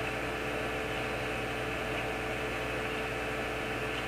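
Steady electrical hum with an even hiss and no distinct events: room tone.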